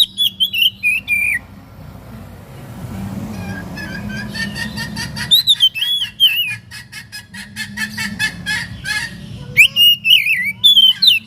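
Oriental magpie-robin (kacer) singing: loud whistled phrases that glide up and down, with a fast run of repeated short notes in the middle and another burst of phrases near the end. A steady low hum runs underneath.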